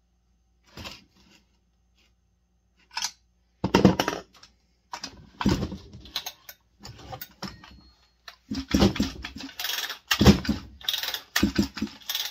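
Small metal tools and parts being handled on a workbench: irregular clinks and clatters in bursts with short pauses, loudest about four seconds in and again from about eight and a half to eleven seconds.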